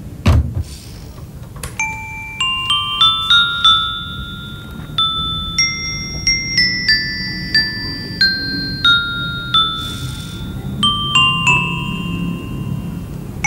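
A telephone receiver is put down with a clunk, then a music box plays a slow tinkling melody of single ringing notes that climb in steps and then fall.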